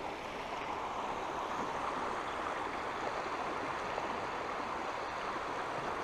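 Steady rush of river water flowing, an even sound with no separate splashes standing out.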